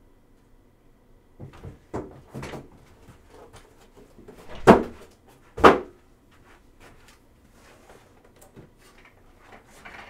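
Handling noises at a table: a few light knocks and rustles, then two sharp thumps about a second apart.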